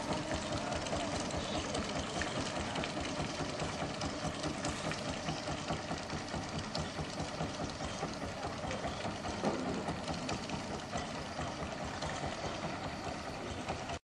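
Engine of a long-tail wooden lake boat running with a rapid, steady chugging.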